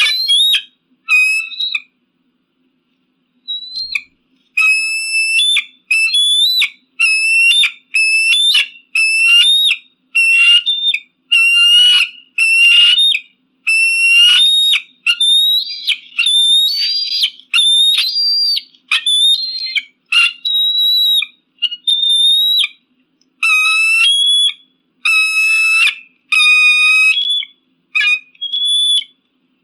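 Eagle calling: a long series of short, high, whistled notes, about one a second, each with a quick jump in pitch, after a brief pause near the start.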